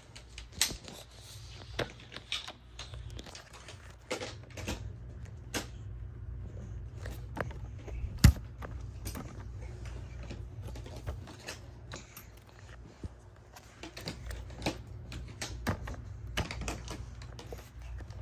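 Scattered clicks and knocks of hard plastic vacuum parts being handled and fitted together, with one sharp, loud knock about eight seconds in, over a low steady hum.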